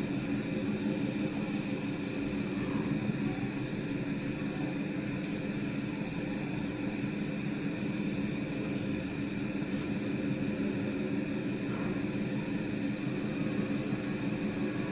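Steady background hiss with a low, even hum and no distinct events.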